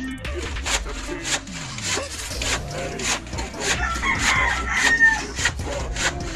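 Handsaw cutting a wooden plank in steady back-and-forth strokes, about two a second. A rooster crows in the background about four seconds in.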